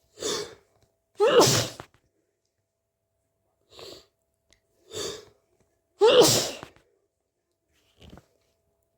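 A person with a stuffy, congested head cold sneezing twice, each sneeze preceded by a sharp intake of breath, with soft breaths in between.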